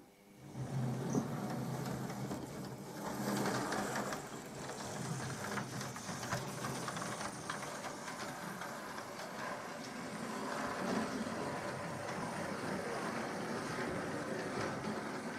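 OO gauge model locomotive running on track: a steady whir from its small electric motor and gears, with clicking from the wheels on the rails. It starts about half a second in.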